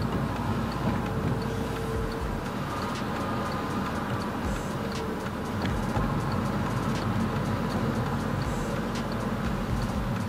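Car driving on a city street, heard inside the cabin: steady engine and tyre noise, with faint regular ticking.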